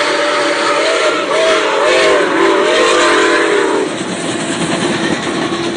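Nickel Plate Road 765's steam chime whistle blowing several notes at once, the pitch wavering as it is worked, then cutting off about four seconds in. The steady noise of the passing train on the rails continues after it.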